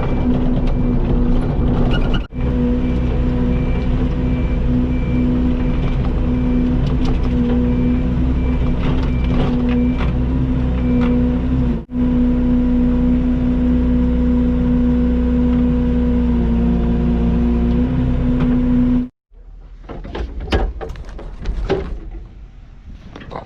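Excavator's diesel engine running steadily under load, its travel alarm beeping repeatedly through roughly the first half. About three-quarters of the way through, the engine sound stops abruptly, leaving quieter clicks and knocks.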